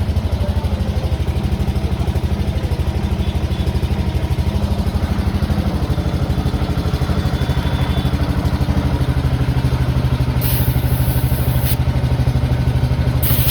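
An engine idling steadily with an even pulse. Two short bursts of air hiss, one just past ten seconds lasting about a second and one near the end, from air let into or out of a tyre valve while its pressure is checked.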